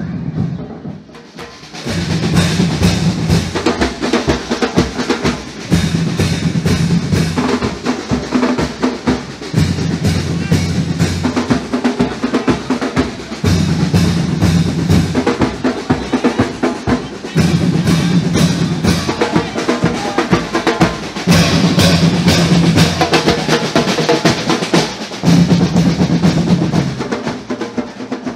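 A marching band's drum line playing a street cadence: fast snare-drum strokes and rolls over bass drums. The playing picks up after a brief lull about two seconds in, and a deep low part comes back about every four seconds.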